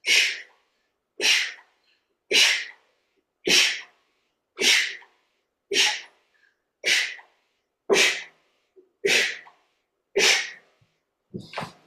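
A person breathing out hard through the mouth about once a second, ten sharp exhalations in a steady rhythm, keeping time with alternating right-leg, left-leg exercise reps.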